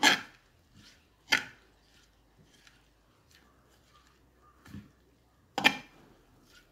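Steel spoon knocking and scraping against an unglazed clay pot while stirring shredded raw papaya in vinegar brine: sharp clinks at the start and about a second and a half in, a softer one near the end, then the loudest just before the end, with small soft taps between.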